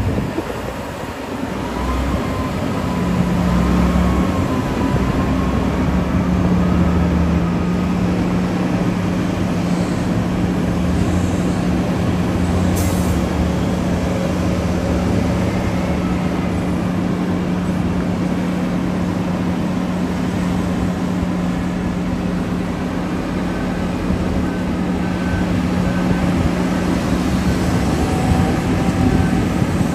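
Diesel engines of heavy mining machinery (a large hydraulic excavator and a haul truck) running under load. There is a steady low drone that settles in about three seconds in, and a faint wavering whine in the first few seconds.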